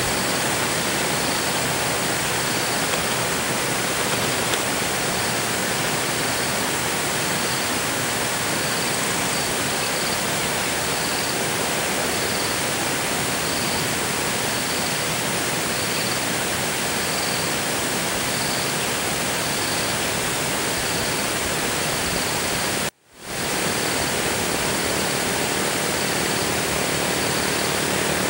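Steady hiss of falling rain. A faint high-pitched call repeats about once a second, and the sound cuts out for a split second near the end.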